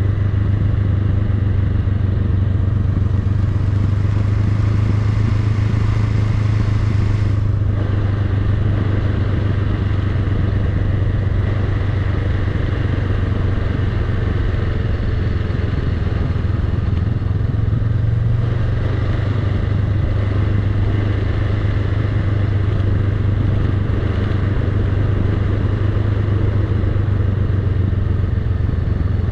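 Honda Rebel 500's parallel-twin engine running with a steady note as the motorcycle rolls slowly downhill.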